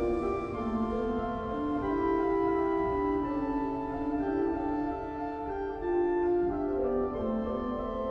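G. Christian Lobback pipe organ playing slow contrapuntal music: several sustained voices held together, the notes moving every half second to a second or so.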